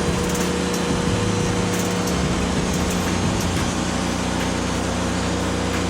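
Wood-Mizer LX150 portable band sawmill running steadily, its band blade sawing through a poplar log.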